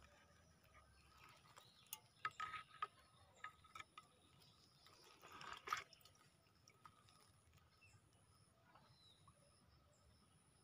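Near silence: faint outdoor ambience, with a few soft clicks and short rustles about two seconds in and again at about five and a half seconds.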